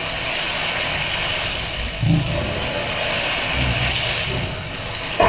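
Vegetables stir-frying in a hot wok over a gas burner, a steady hiss of sizzling as they are tossed, with a couple of low bumps about two seconds in and again near four seconds.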